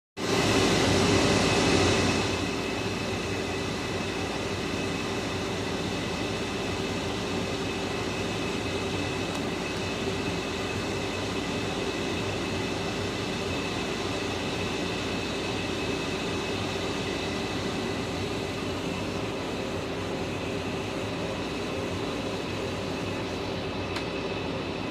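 Okuma Genos L400E CNC lathe running, a steady mechanical hum with several high whine tones over it, a little louder for the first two seconds.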